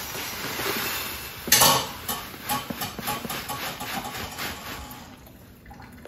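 Rolled oats poured from a paper bag into a glass jar: a rustling, pattering pour with the paper crinkling, and a sudden loud crackle about one and a half seconds in. The pour thins out and grows quieter near the end.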